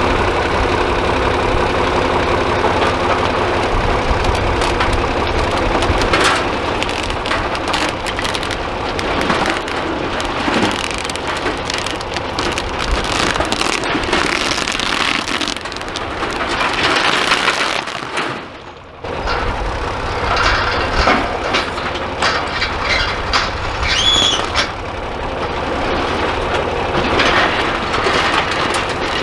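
John Deere tractor engine running steadily under load as its front-loader grapple drags a tarp of rocks off a trailer, with rocks clattering and knocking as they tumble off. The sound drops out briefly about two-thirds through.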